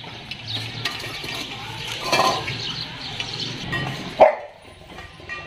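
Several dogs eating from steel bowls on a tiled floor, with wet lapping and bowls clinking and scraping. One short, sharp sound about four seconds in.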